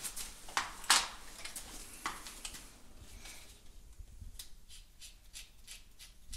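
Light clicks, taps and rubbing from handling tools and cabinet parts. There are a few sharper knocks in the first two seconds, then fainter scattered ticking.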